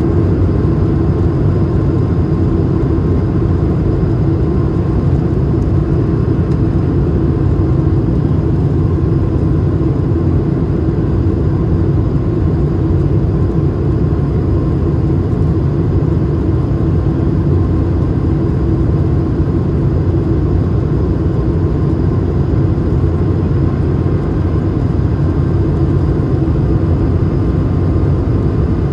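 Steady cabin noise inside an Airbus A220 in flight: an even, unbroken rumble of airflow and its Pratt & Whitney PW1500G geared turbofan engines, with a faint steady hum over it.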